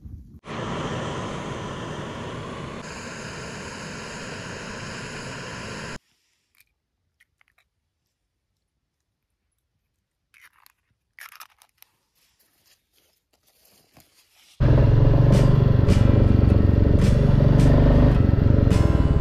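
A campfire burns steadily for the first several seconds. Then comes a long near-quiet stretch with a few faint taps and clicks. Near the end the single-cylinder engine of a Royal Enfield Classic 350 starts running loud and steady under riding.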